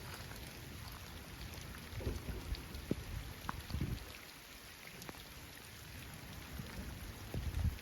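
Steady rain falling, with scattered drops ticking close by. Low rumbles swell up about two seconds in, again around four seconds, and near the end.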